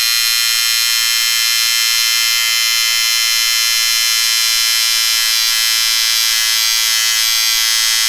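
A small electric bathroom appliance buzzing steadily at one even pitch throughout.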